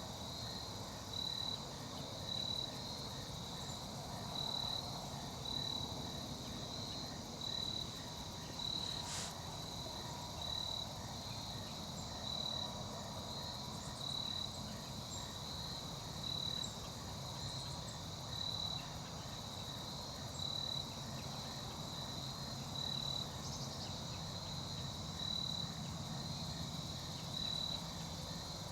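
Insects chirping in a steady, even, high-pitched pulse over low background noise, with a single faint click about nine seconds in.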